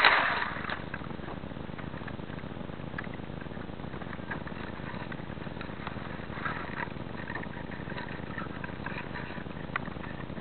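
A loud rushing sound fades out within the first half second, leaving steady low background noise with a few faint scattered ticks.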